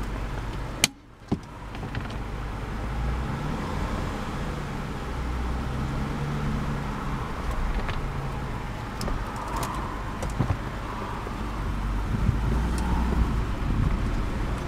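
2006 Lexus IS250's 2.5-litre V6 idling, a steady low hum heard from inside the cabin. Two sharp clicks about a second in, with a brief dip in the sound between them, and a few faint clicks later.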